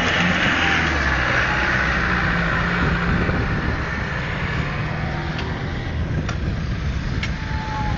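Land Rover Defender driving past close by, its engine running steadily, getting quieter from about three seconds in as it pulls away across the field.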